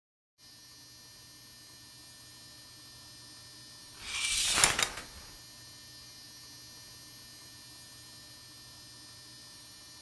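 Steady electrical hum made of many even tones, broken about four seconds in by a loud, noisy rush lasting about a second, which peaks with a sharp click and then fades back into the hum.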